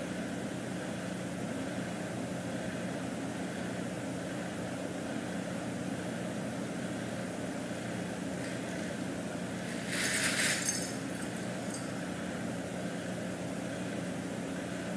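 A steady low mechanical hum, with a brief rustle about ten seconds in as the cat pushes into a fabric play tunnel and shifts it.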